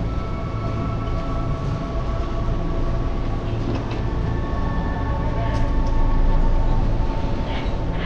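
Steady low rumble of suitcase wheels rolling over a tiled floor, with faint steady tones above it.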